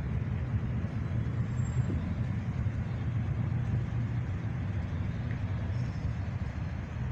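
Engines of a slow procession of cars and pickup trucks rolling past at low speed, a steady low rumble.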